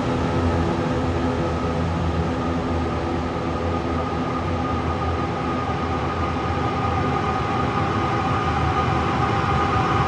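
A steady rumbling drone with several held tones, train-like, the higher tones growing stronger in the second half.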